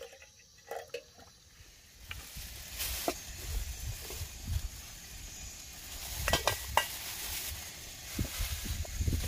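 Thin plastic carrier bag crinkling and rustling as hands rummage in it, with several sharper crackles. Just before it, water is poured briefly from a plastic bottle into a steel kettle.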